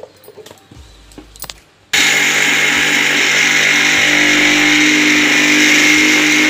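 Electric mixer grinder grinding soaked and dried raw rice into flour: a few clicks as the jar lid is set on and held down, then about two seconds in the motor starts abruptly and runs loud and steady.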